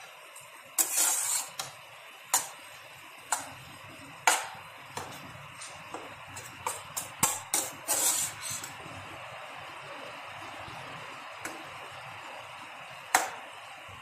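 Metal spatula scraping and knocking against a frying pan while stirring an okra and egg stir-fry, in irregular strokes for the first eight seconds or so. After that only a soft steady hiss of the food frying is left, with one more knock near the end.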